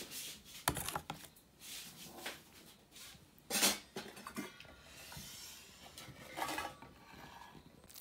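A metal serving bowl or ladle knocking and scraping against a cooking pot and a plate as curry is dished out. It comes as a handful of separate clinks and rubs, the loudest about three and a half seconds in.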